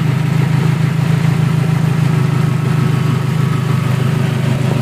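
Modified Toyota Camry's 2.2-litre four-cylinder engine idling steadily and loudly, heard close up over the open engine bay.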